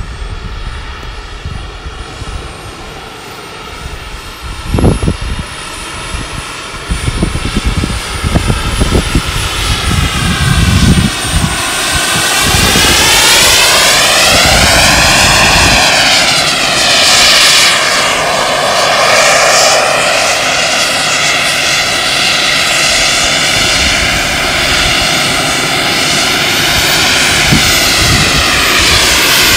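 Turbine engine of a large RC model Eurofighter Typhoon jet flying past, its whine growing much louder about twelve seconds in and staying loud. The tone sweeps down and back up as the jet passes. A few low thumps come in the first ten seconds.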